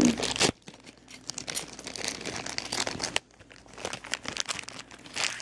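Thin plastic packaging bag crinkling and rustling as it is handled, in irregular crackles with a short lull about three seconds in.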